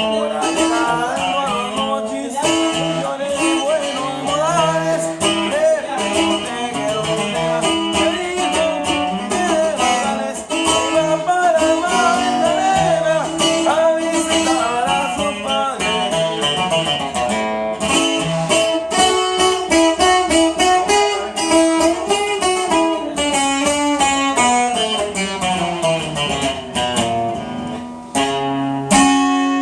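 Handmade Paracho requinto guitar played solo: a melody picked note by note, with bent, wavering notes and quick runs. There is a short pause near the end, then a few held notes.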